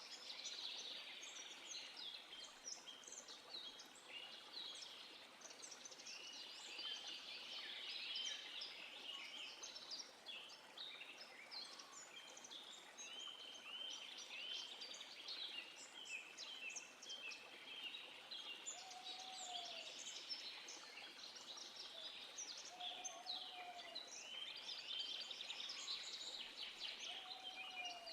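A chorus of several songbirds chirping and trilling continuously over a faint steady background hiss, with a lower short call from another bird three times in the second half.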